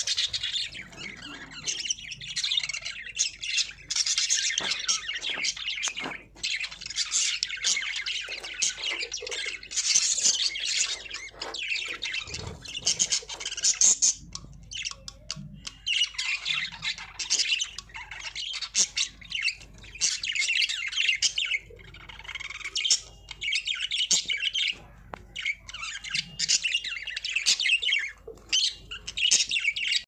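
A flock of budgerigars chirping and singing all at once: a dense, unbroken high-pitched chatter that thins briefly about halfway through.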